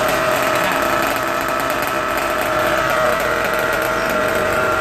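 Nitro-fuelled RC car engine idling steadily at one even pitch while its carburettor needle is being tuned.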